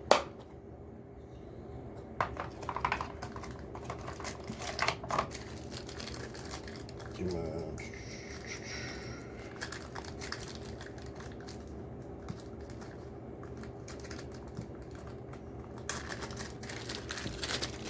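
Scattered light clicks, taps and rattles from small equipment being handled on a desk, over a steady low electrical hum.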